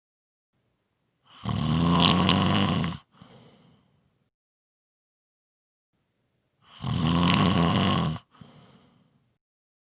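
A person snoring heavily: two loud snores about five seconds apart, each followed by a softer trailing breath.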